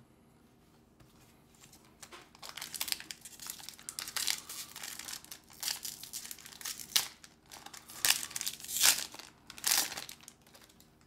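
Foil Pokémon booster pack wrapper crinkling and being torn open by hand: a run of crackly rustles that starts about two seconds in and is loudest near the end.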